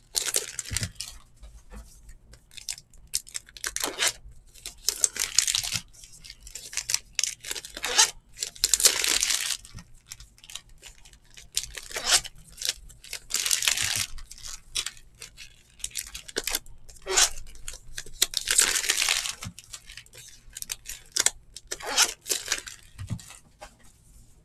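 Trading-card pack wrappers from 2019 Archives Baseball being torn open and crinkled in several bursts of about a second each. Between the bursts come short clicks and flicks of cards being shuffled through by hand.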